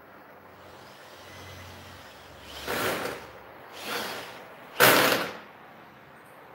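Handheld electric drill run in three short bursts about a second apart, the last the loudest, as it drives into a PVC door frame to fix a hinge.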